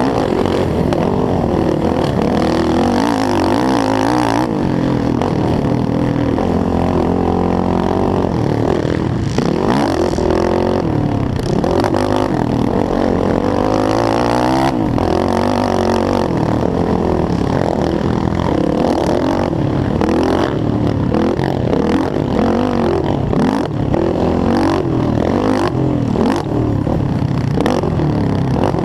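Yamaha YFZ450R quad's single-cylinder four-stroke engine racing hard, revving up and falling back again and again through gear changes, with scattered short knocks and clatter.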